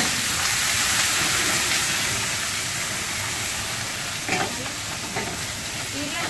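Cod fillets searing in hot oil in a steel frying pan, a loud steady sizzle that eases slightly, with two brief knocks about four and five seconds in.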